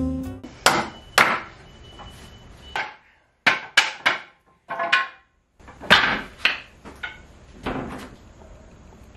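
A hammer striking wood in an uneven series of about a dozen sharp blows, some in quick pairs.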